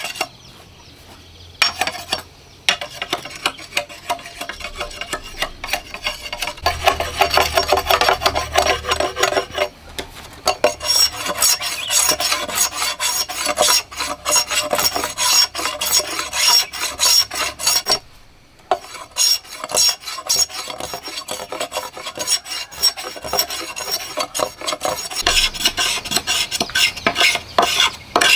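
A large steel knife scraping the skin of a green bamboo pole in rapid rasping strokes, in runs broken by a few brief pauses.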